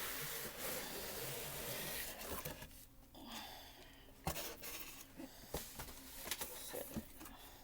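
Rustling of packaging being handled for the first two or three seconds as an item is taken out of its opened box, then a few scattered light knocks and taps.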